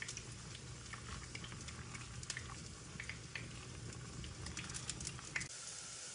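Stainless pot of water at a rolling boil with thick bánh canh noodles being stirred with wooden chopsticks: steady bubbling with scattered small pops and clicks. The sound changes abruptly about five and a half seconds in.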